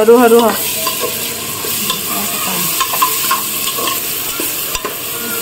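A steel spatula stirs and scrapes fried onions and masala paste in hot oil inside a metal pressure cooker pot, over a steady sizzle of frying. A short wavering high-pitched sound opens it.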